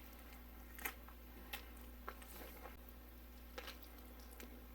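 Near silence: a steady low room hum with about five faint, short clicks scattered through it.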